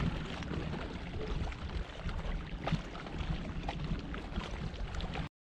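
Water splashing and lapping around a kayak being paddled on choppy lake water, with a low rumble of wind on the microphone. The sound cuts out abruptly near the end.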